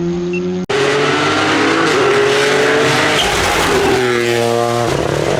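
Rally car engine accelerating hard, its pitch climbing and dropping with gear changes. The sound breaks off sharply a little under a second in and resumes with another car pulling away.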